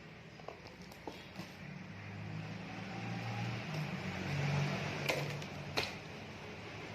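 A steady mechanical hum with a low drone that shifts in pitch, and two sharp clicks about five and six seconds in.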